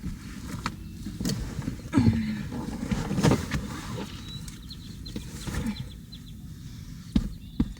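Rustling and scattered knocks of things being handled and moved about inside a car, over a low rumble, with a couple of sharper clicks near the end.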